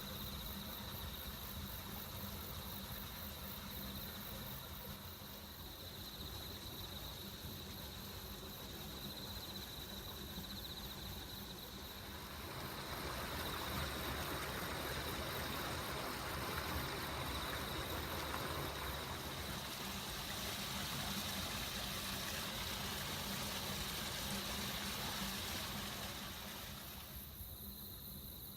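A Ueda Electric Railway 1000-series electric train passing over a level crossing: a broad running noise that builds about twelve seconds in and fades near the end. Insects chirp steadily throughout.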